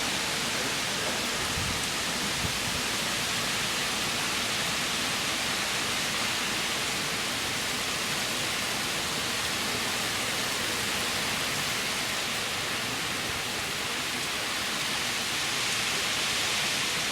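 Heavy hurricane rain and wind from Hurricane Irene: a dense, steady hiss that holds at the same level throughout.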